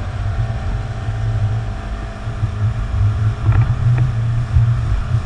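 Towboat's engine running steadily while pulling a wakeboarder, with wind buffeting the microphone in a loud, fluttering low rumble.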